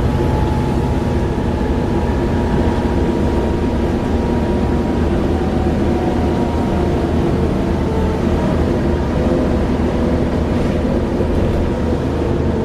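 Class 37 diesel-electric locomotive 37030 running loud and steady, its English Electric V12 giving a deep drone under the high turbocharger whistle that earns the class its 'Hoover' nickname. The whistle falls slowly in pitch.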